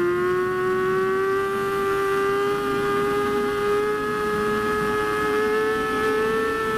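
Motorcycle engine pulling steadily under throttle in one gear, its pitch rising slowly and evenly as the bike gains speed, over wind and road noise.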